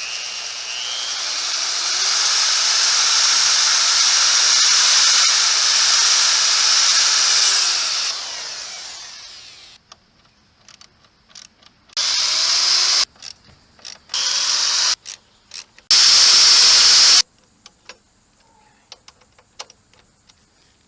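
Power drill driving self-tapping screws through the mower's sheet-steel deck and patch plate: one long run of about nine seconds that winds down, then three short bursts, with small clicks between.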